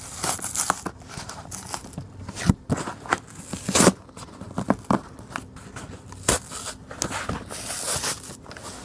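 Cardboard coin box being pried open by hand: its flaps scraping and tearing, with irregular rustles and several sharp cracks.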